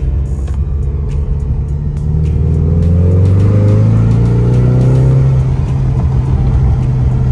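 Ford Mustang EcoBoost's turbocharged 2.3-litre four-cylinder under a hard pull in drag strip mode, heard from inside the cabin. The engine holds steady for about two seconds, then its note climbs in pitch and grows louder, and holds high near the end. The driver blames the lag before the climb on the 10-speed automatic's slow downshift.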